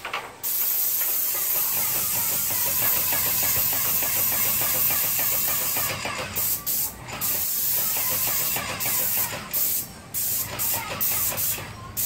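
Airless paint spray gun on an extension pole hissing as paint sprays from its tip: one long pass of about five seconds, then a series of short bursts as the trigger is pulled and released.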